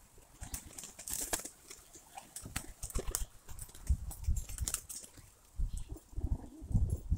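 Pigeons moving about in an aviary: a scatter of sharp taps and clicks from the birds pecking and stepping. Low rumbles on the microphone are the loudest part about four seconds in and again near the end, when a pigeon starts to coo.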